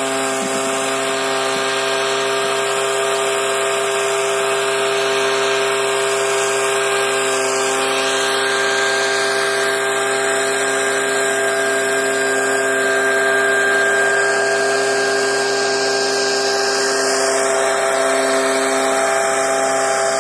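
Small engine of a motorized tea-plucking machine running steadily at high speed and constant pitch, shearing tea shoots and blowing them into its cloth collecting bag.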